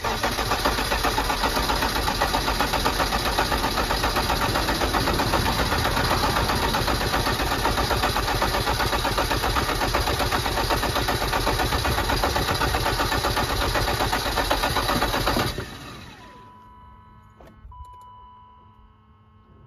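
A 1988 BMW's 3.5-litre M30 straight-six cranking on the starter motor for about fifteen seconds without firing, then stopping abruptly. It does not catch because the electric fuel pump has failed and no fuel reaches the engine.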